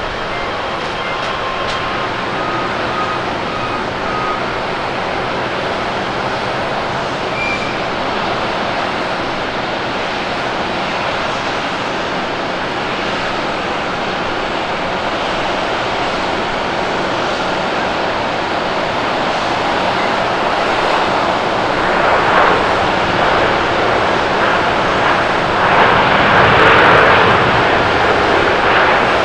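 Jet airliner engine noise from a United Airlines Boeing 787-10 landing and rolling out on the runway. The noise is steady at first, then grows louder over the last ten seconds and is loudest near the end as the aircraft passes.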